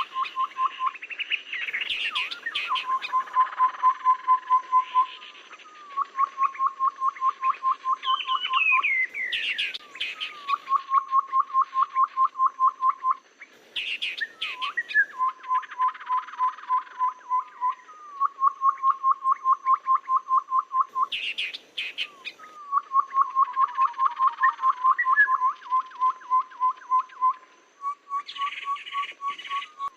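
Lure recording of a tepus babbler singing: repeated runs of rapid, evenly spaced piping notes at one low pitch, each run about two seconds long, with higher chirps and sharp calls between the runs.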